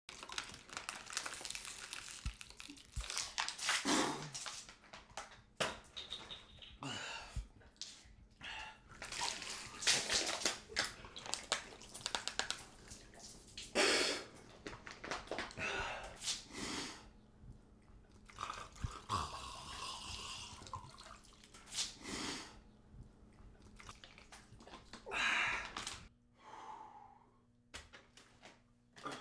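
Water being gulped and slurped from plastic bottles close to the mouth, in a long run of irregular wet, noisy bursts with short pauses between them.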